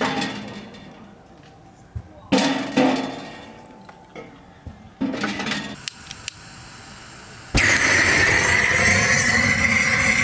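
Camp dishes and glassware clinking: several sharp ringing knocks in the first five seconds. About seven and a half seconds in, a loud steady hiss with a faint wavering whistle starts abruptly.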